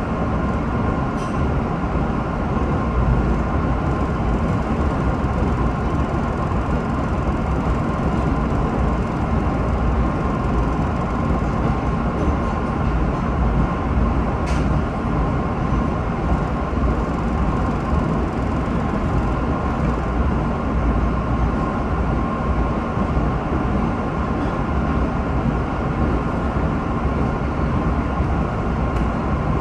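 MBTA Red Line subway train running at speed through a tunnel, heard from inside the car: a steady, loud rumble of wheels on rail with a steady whine over it. There is a single sharp click about halfway through.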